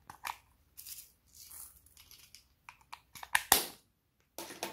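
Glossy slime being mixed and squished by hand, giving a series of short, irregular crackles and pops, the loudest about three and a half seconds in.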